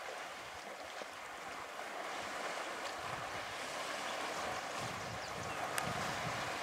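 Water sloshing and splashing as African bull elephants wade and swim through a shallow dam, a steady even wash, with one sharp click near the end.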